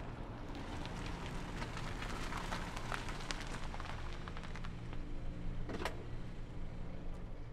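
Car engine running with a steady low hum under a dense crackle, and one sharp click a little before six seconds in.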